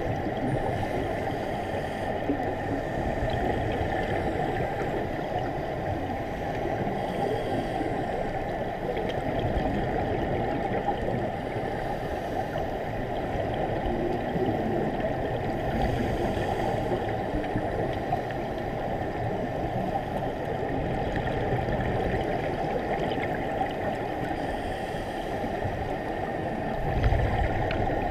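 Underwater ambience heard through a diving camera's housing: a steady, muffled rushing noise, with a brief low thump near the end.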